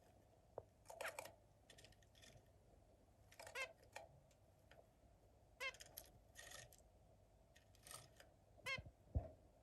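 Zebra finch giving short calls, one every second or so, some in quick pairs. A brief low thump near the end.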